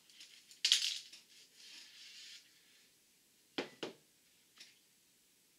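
Handling noise at a workbench: a sharp click with a rustle of paper, then two quick knocks as a pair of metal sleeve crimping pliers is set down on the tabletop.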